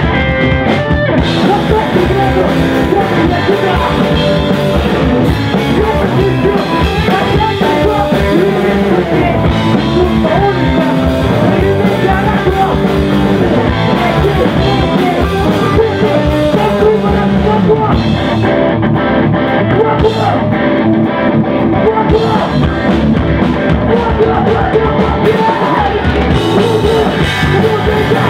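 Punk rock band playing live, with electric bass, electric guitar and a drum kit at full volume and a singer on the microphone.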